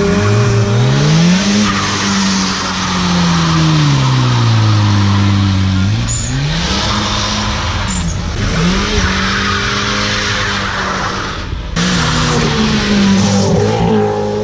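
Cars and a motorbike revving and accelerating away one after another, the engine notes rising and falling in pitch, with tyre squeal from wheelspin.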